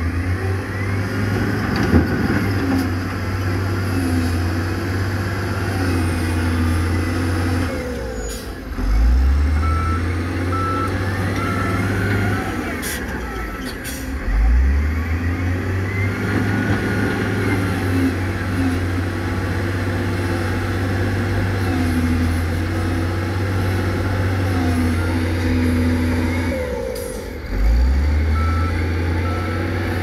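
Heavy diesel dump truck engines running steadily, with a reversing alarm beeping in short runs about a third of the way in and again near the end. The engine sound breaks off and starts again abruptly a few times.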